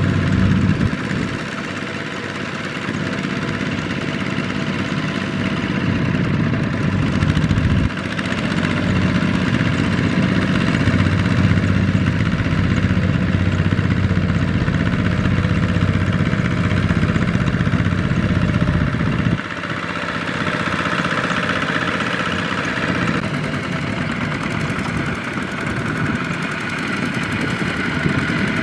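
Single-cylinder diesel engine of a two-wheel walking tractor running steadily while it pulls a trailer loaded with rice sacks. The engine sound changes abruptly twice.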